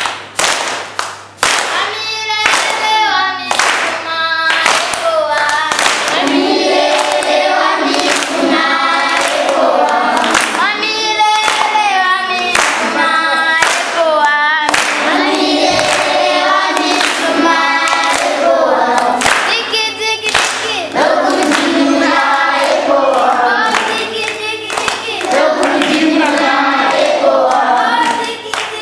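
A group of schoolchildren singing together in chorus, with hand clapping keeping a steady beat.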